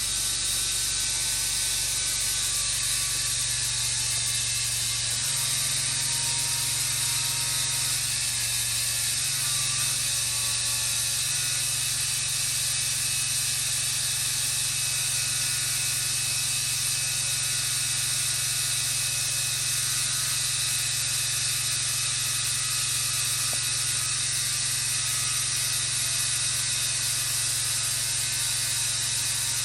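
Large band sawmill running through a cut: a steady high hiss over a low machine hum, the hum shifting slightly in pitch about five and eleven seconds in.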